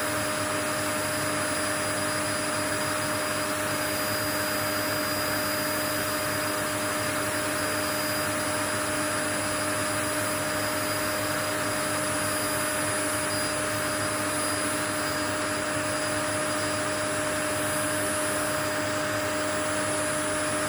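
Steady white noise for lulling a baby to sleep: an even rushing hiss with a constant low hum and a thin high whine in it, like a running vacuum cleaner, with no change in level.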